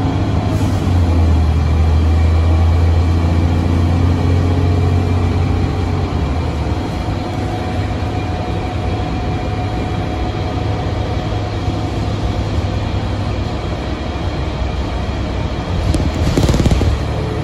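Cummins ISM diesel engine and drivetrain of a 2006 Nabi 40LFW transit bus, heard from inside the cabin while the bus drives. A deep engine drone is strongest for the first several seconds, then eases off. A brief rush of noise comes near the end.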